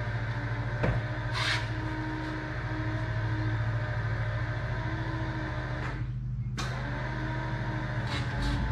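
Electric wing-flap motor of a high-wing light aircraft running with a steady hum as the flaps extend. It pauses briefly about six seconds in, then runs on.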